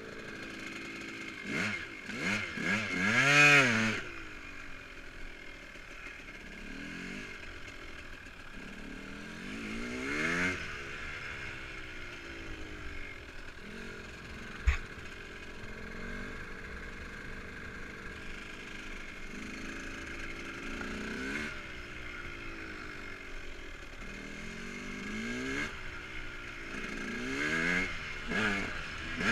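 Dirt bike engine heard from on board while riding, revving up and dropping back again and again in pitch, loudest about three seconds in. A single sharp knock about halfway through.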